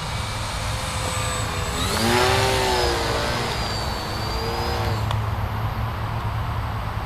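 Electric motor and propeller of a VisionAire RC aerobatic plane whining as it flies by: the whine rises in pitch about two seconds in, holds for about three seconds, then fades.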